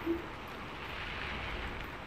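Steady hiss of heavy rain falling outside, even and unbroken.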